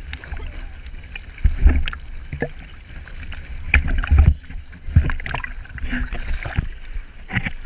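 Sea water sloshing and splashing against a camera held at the surface, over a constant low rumble of water buffeting the housing, with irregular splashes scattered through.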